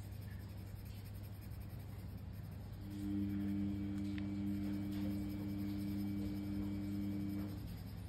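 Colored pencil scratching on paper as it shades in, under a steady low hum. About three seconds in, a louder low drone of two notes held together starts, and it stops shortly before the end.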